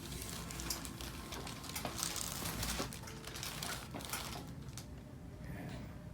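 Quiet treatment room with a low steady hum, faint rustling and a few soft clicks.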